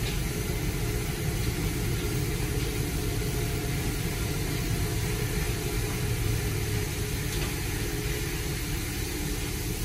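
Steady low rumble and hiss heard from inside a car's cabin: the car idling while a tunnel car wash's water arch and machinery run just ahead.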